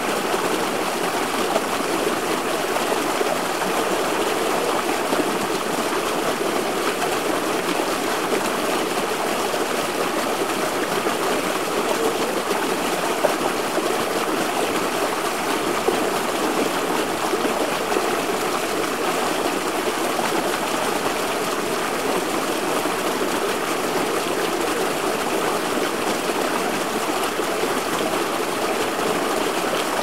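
River water rushing and splashing over and between large boulders in small cascades, a steady, even burble of running water.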